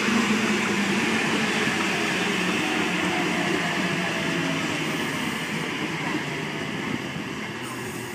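Oscar H-set electric intercity train pulling into the platform, its carriages rolling past close by: a steady wheel-and-carriage rumble with a faint falling motor whine, easing off as the train slows.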